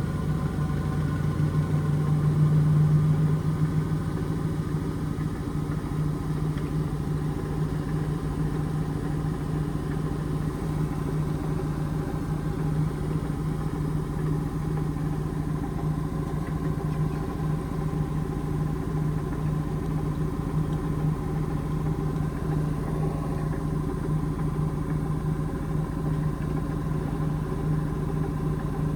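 Indesit IMA862 washing machine spinning its drum during an intermediate spin: a steady motor hum that swells slightly about two to three seconds in, then holds level.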